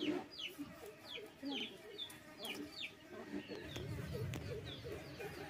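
Chickens in the yard: a hen clucking low, with chicks giving a quick run of short, high, falling peeps that stops a little after halfway.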